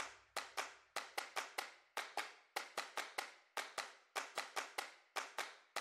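Sparse stretch of a background music track: only short, sharp percussive clicks at an uneven rhythm of about four a second, with silence between them.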